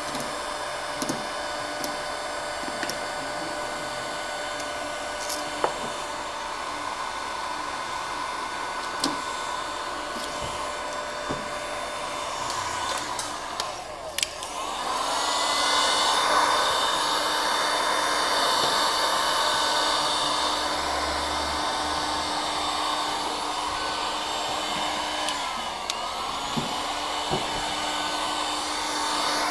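Handheld electric heat gun blowing steadily while heating vinyl wrap film, with a few small clicks and taps. It gets louder about halfway through, then near the end briefly spins down and comes back up.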